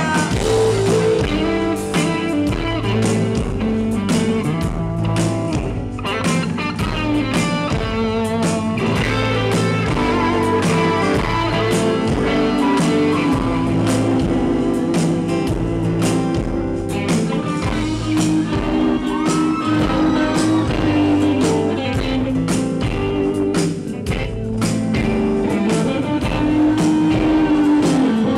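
Live band music with the electric guitar to the fore, playing over a steady beat.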